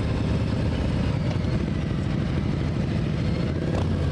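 Motorcycle engine sound effect, running steadily at idle with a fast, even low pulse.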